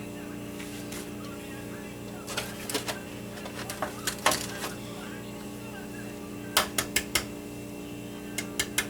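Sharp taps and clicks of eggshell and bowl as eggs are cracked one at a time, in several small clusters with a run of four quick taps about two-thirds of the way in. A steady low hum runs underneath.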